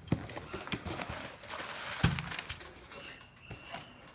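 Sunroof repair kit parts being handled and set down: scattered light clicks and taps, with one louder knock about two seconds in.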